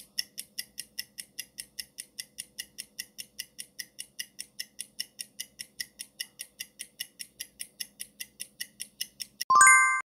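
Countdown-timer sound effect: a clock ticking quickly and evenly, about five ticks a second. Near the end comes a short, bright chime of several tones, the loudest sound, marking time up as the answer is shown.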